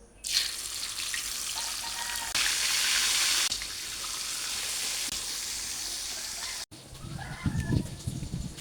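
Food frying in hot oil: a steady sizzling hiss that grows louder for about a second near the middle and then cuts off abruptly about two seconds before the end.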